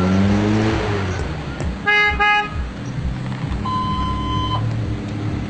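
Car engine revving up, then two short car-horn toots about two seconds in, followed by a steady higher-pitched beep lasting about a second, over a steady low engine hum.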